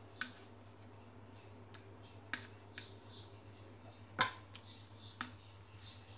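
Metal spoon clicking against a plastic yogurt pot and a stainless steel bowl as thick yogurt is scooped out and dropped in: about six sharp clicks at uneven intervals, the loudest about four seconds in.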